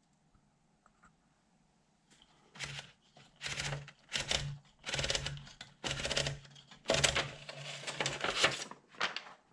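A 1968 Smith-Corona Sterling manual portable typewriter being typed on in quick bursts of clattering key strikes, starting about two and a half seconds in.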